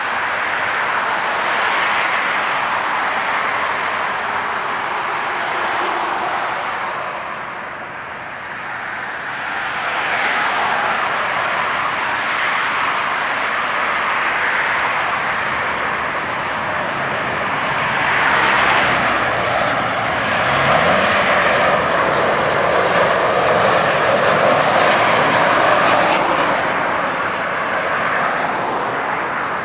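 Boeing 737-800 airliner landing, its CFM56 jet engines giving a broad, rushing noise that dips briefly and then swells louder through the second half.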